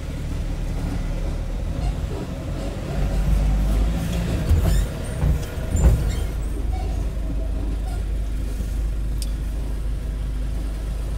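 Road vehicle's engine running steadily at low revs while manoeuvring to park, with a few short knocks and clicks about halfway through.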